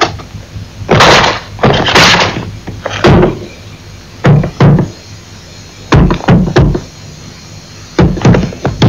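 A series of irregular knocks and thuds. Single hits come about one, two and three seconds in, then clusters of deeper thuds around the middle and near the end.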